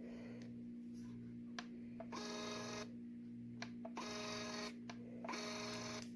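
JADENS D110 thermal label printer running its feed motor in three short whirring runs, each under a second, with small clicks between them as it prints and pushes out labels. A steady low hum lies underneath.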